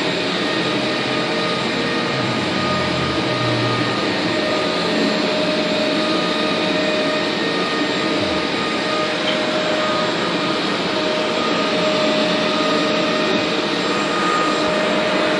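A steady, loud motor drone with a faint high whine, unchanging throughout.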